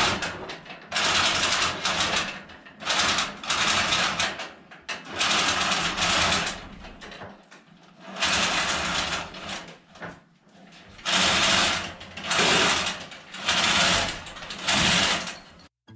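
Hand chain hoist being worked by hand. The chain rattles through the hoist in a series of pulls, each about a second long, with short pauses between.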